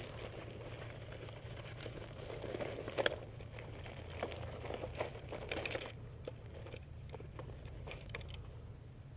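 Handling noises from freeing a caught largemouth bass from tangled fishing line: scattered clicks and rustles, busiest from about two and a half to six seconds in, with one sharper click near three seconds, over a low steady hum.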